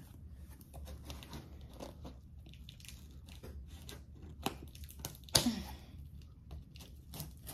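A shipping box being opened by hand: irregular crackling, tearing and crunching of packaging, with one louder sharp sound about five seconds in.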